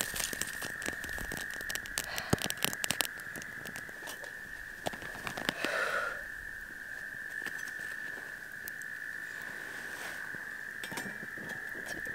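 Twigs crackling and popping as they burn in a small stainless-steel folding wood stove, with many sharp pops in the first few seconds and scattered ones after. A steady high tone runs underneath.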